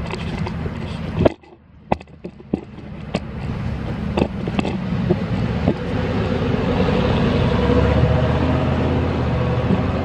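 Road traffic: a motor vehicle's engine and tyre noise builds up to a peak near the end. Scattered sharp clicks and taps come in the first half.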